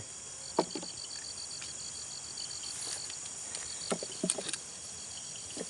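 Insects calling: a rapid pulsed chirp, about nine pulses a second, over a steady high buzz from other insects. A few brief low sounds break in, about half a second in and again around four seconds.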